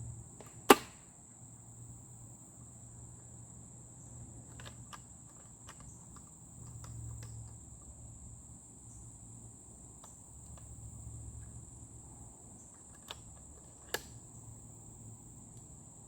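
A single sharp shot from a .357 Hatsan Bully air rifle about a second in, followed by two smaller clicks near the end. Insects chirr steadily in the background.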